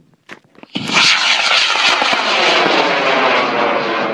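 High-power model rocket motor lighting with a sudden loud roar under a second in, holding steady as the rocket boosts straight up on its smoke trail.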